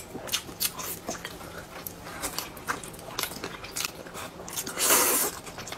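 Noodles being eaten with chopsticks: wet chewing and lip smacks throughout, with one long slurp near the end.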